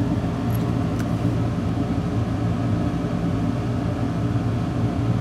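Steady low machine hum of running workbench equipment, with a faint light tick about a second in.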